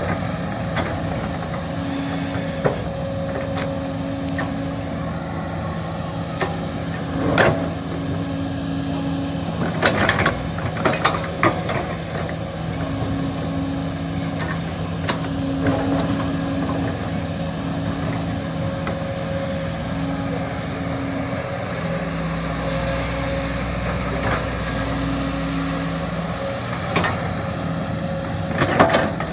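Excavator running steadily while digging, its engine hum shifting a little in pitch under load, with several sharp knocks and clanks, a cluster about ten seconds in and more near the end.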